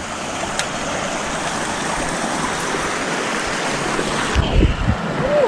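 Mountain stream rushing over rocks, a steady rush of water. About four and a half seconds in, the sound briefly dulls and a few low thumps come through.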